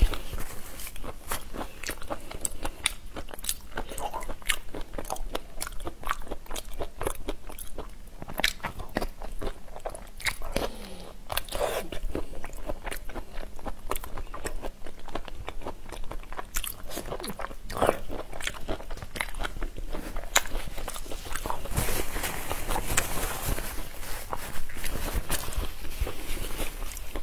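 Close-miked chewing and biting of spicy marinated raw shrimp: a run of irregular crunches and crackles.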